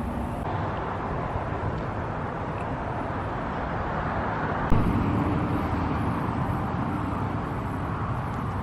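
Steady outdoor vehicle and road noise, with a sharp tick about halfway through after which a low rumble grows louder.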